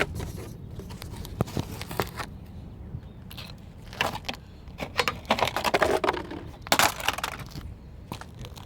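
Metal tools and parts clinking, knocking and scraping while shock absorbers are being changed on a car. Scattered sharp clicks, with short rattling scrapes about four, five to six and seven seconds in.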